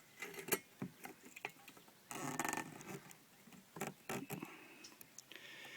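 Hand rivet tool and metal kettle being handled: a series of sharp clicks and knocks, with a brief scraping rustle about two seconds in.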